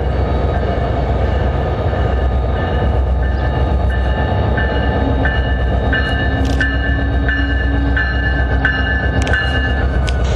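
Commuter train approaching with a steady low rumble. From about four seconds in, a bell rings in an even rhythm, about three strikes every two seconds.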